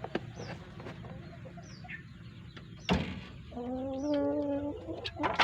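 Chickens calling: a drawn-out, even-pitched call lasting about a second just past the middle, with faint high chirps around it. A single sharp knock comes just before the long call, and a few clicks follow near the end.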